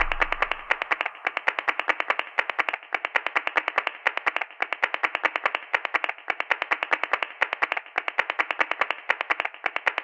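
Backing music for an indoor cycling class: a bass-heavy track fades out in the first second, and a fast, even rhythm of sharp clicks, several a second, carries on as the percussive intro of the next song.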